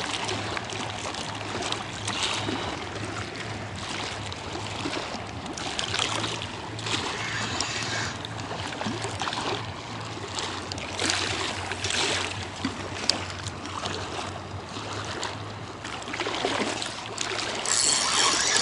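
Small waves lapping and splashing against a concrete bank, rising and falling unevenly. Near the end a spinning reel starts being wound in as a fish is played on the feeder rod.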